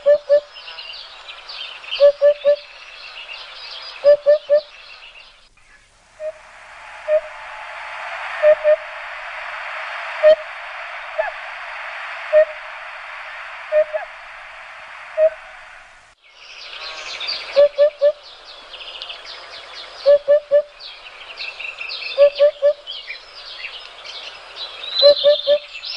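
Background nature soundscape: small birds chirping, with a low call repeated in quick sets of two or three notes about every two seconds. From about six seconds in to about sixteen, the chirping gives way to a steady rushing noise with single low notes, then the chirping and paired calls return.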